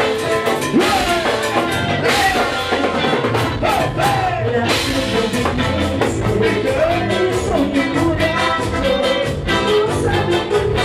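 Live band playing upbeat Latin dance music, with a drum kit keeping a steady beat under a sung melody.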